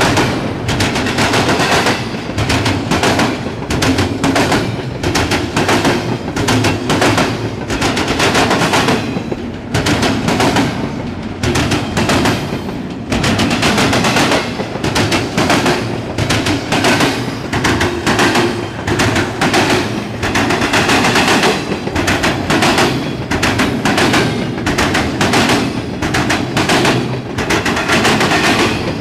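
Freight train cars rolling past close by, their wheels clattering in a continuous run of sharp metallic bangs on the track.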